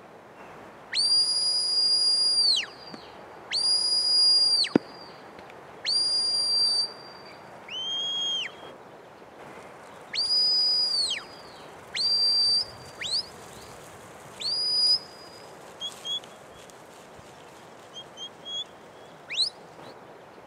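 A shepherd's whistled commands to a working Border Collie. First comes a run of long, level, high whistle blasts, one of them lower in pitch. Shorter rising whistles and a few quick pips follow near the end.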